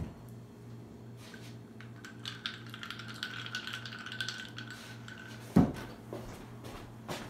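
Ice cubes rattling and clinking in a glass as a vodka-and-orange-juice screwdriver is shaken by hand, then a heavy thump as the glass is set down on the table about five and a half seconds in.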